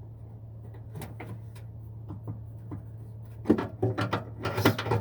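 Metal hand tools clanking and rattling as they are rummaged through, a few scattered clicks at first, then a run of loud metal clatter with some ringing in the last second and a half, over a steady low hum.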